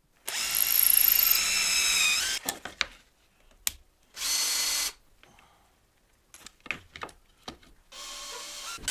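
Power drill boring a pilot hole in plywood for about two seconds, its whine falling as it spins down. This is followed by a Festool drill-driver running in short bursts to drive a screw into the plywood, with a few clicks between runs.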